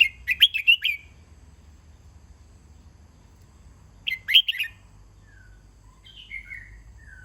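Red-whiskered bulbul singing: a short, bright warbled phrase at the start and another about four seconds in, with softer falling notes in between.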